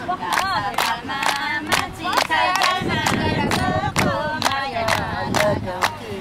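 A group of men and women singing a Nepali folk song together, unaccompanied, keeping time with steady hand-clapping about twice a second.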